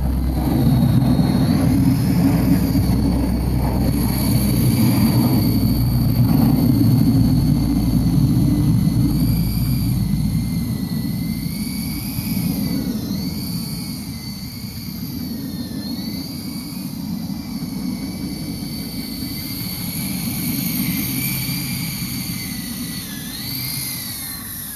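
Radio-controlled model helicopter in flight: a high motor whine that wavers up and down in pitch as it manoeuvres, over a dense low rotor rumble. The sound eases off in the second half, and near the end the whine drops sharply in pitch as the helicopter comes down low.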